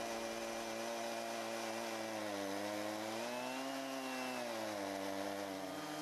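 Chainsaw on a TimberJig sawmill carriage ripping a log lengthwise, its engine running steadily under load. The engine pitch rises briefly about midway and settles back.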